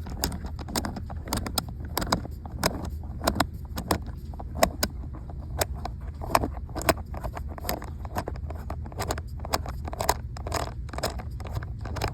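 Small hard parts of a Quad Lock phone mount clicking, tapping and scraping as it is screwed into place by hand, many irregular clicks over a steady low rumble.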